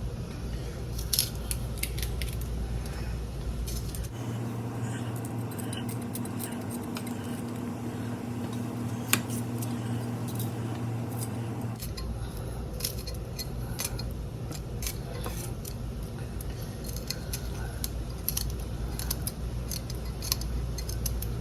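Scattered light clicks and clinks of kitchen utensils and dishes as the pot of chicken and dumplings is seasoned, with a steady low hum in the middle stretch.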